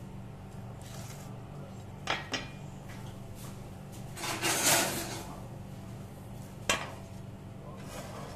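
Kitchen clatter: a cleaver and a metal dish knocking against a wooden chopping board. There are two knocks, then a longer clatter about halfway through, then a single sharp click, over a steady low hum.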